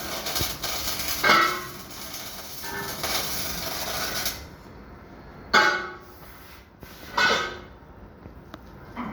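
Electric welding arc crackling and sizzling for about four seconds, then cutting off abruptly. Two short, loud pitched sounds follow in the quieter stretch after it.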